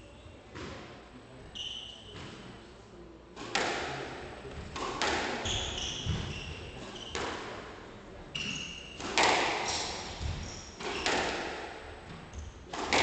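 Squash rally: the ball is struck by rackets and smacks off the walls, a sharp echoing crack about every second, louder from about three and a half seconds in. Rubber-soled court shoes squeak briefly on the wooden floor between shots.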